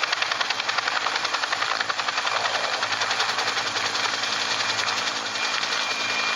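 An engine-driven machine running steadily with a rapid, even pulsing beat, about five or six beats a second.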